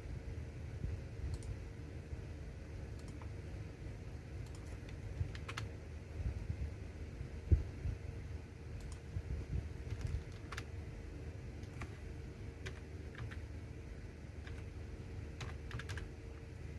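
Computer keyboard being typed on: irregular, sparse keystroke clicks, with one louder knock about halfway through, over a steady low hum.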